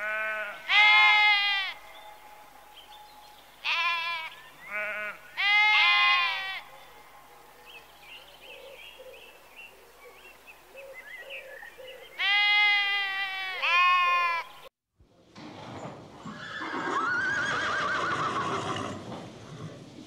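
Sheep bleating: about seven loud, drawn-out bleats, some in quick succession, over the first fourteen seconds, with fainter calls in between. After a sudden cut, a herd of horses: a dense steady noise with one long, wavering whinny that rises and falls.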